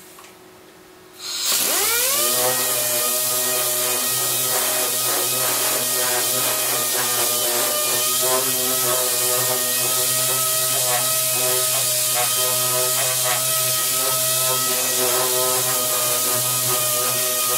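Pneumatic dual-action orbital sander starting about a second in, its whine rising as it spins up, then running steadily with a hiss of exhaust air. It is sanding a sheet-metal panel to prep it for paint.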